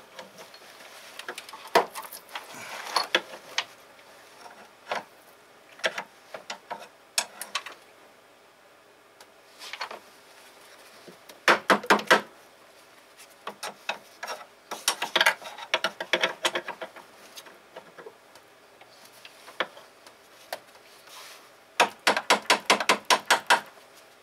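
Hand tools at work on a car engine: scattered knocks and clinks, with bursts of rapid, evenly spaced clicking, the longest burst near the end.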